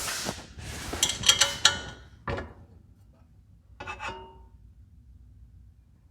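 Metal-on-metal scraping and rubbing from the planer's folding extension table being adjusted, then a sharp knock about two seconds in and a short squeaky rub near four seconds.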